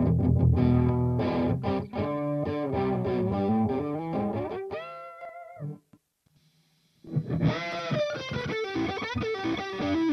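Electric guitar with a new budget pickup, played through the Amplitube 4 amp simulator with some distortion. A run of picked single notes ends on a held note with vibrato; after a break of about a second comes another phrase with bent notes.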